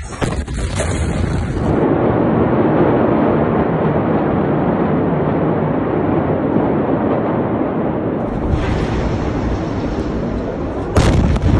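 Phone recording of a massive explosion. A few knocks come at the start, then several seconds of dense, steady rumbling noise, and a sudden louder burst of noise near the end.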